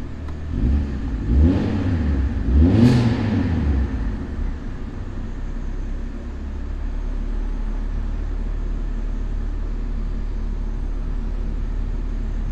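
Honda CRX's dual-point-injected four-cylinder engine revved twice in park in the first few seconds, then settling to a steady idle, which the owner finds fine now.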